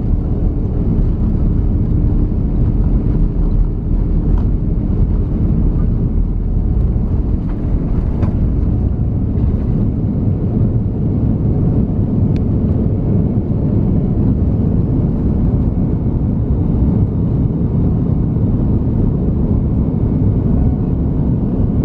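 Airbus A330neo's Rolls-Royce Trent 7000 engines at takeoff thrust, heard inside the cabin over the wing: a loud, steady rumble through the takeoff roll and on into the climb after liftoff.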